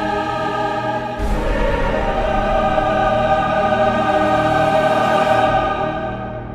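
Orchestral music with a choir singing long held chords. It swells about a second in and fades away near the end.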